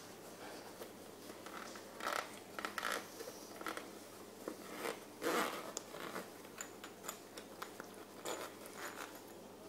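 Zipper of a soft, fabric-covered sunglasses case being pulled open in several short, uneven rasps, the longest about halfway through.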